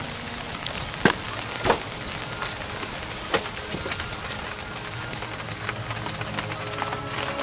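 Rain falling on a car's Plasti Dip-coated canvas convertible top, heard as a steady hiss with scattered drops tapping. There are two louder sharp knocks about a second in.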